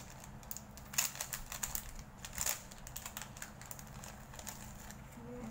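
Light crinkles and clicks from small items being handled, sharpest about a second in and again about two and a half seconds in, over a faint low hum.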